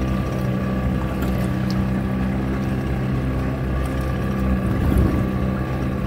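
Outboard motor of a small boat running at a steady cruising speed, heard from aboard, with a brief thump about five seconds in.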